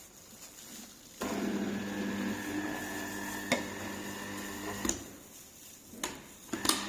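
Electric motor of a slow juicer starting about a second in and humming steadily, then cutting out with a click near five seconds and starting again after more clicks near the end: the juicer's cap interlock stops the motor when the feed cap is opened and lets it run again when the cap is closed.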